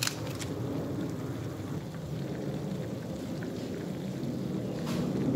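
Vegetable broth simmering in a wok on the stove, a steady low bubbling rumble with a few faint ticks and a sharp click at the start and another near the end.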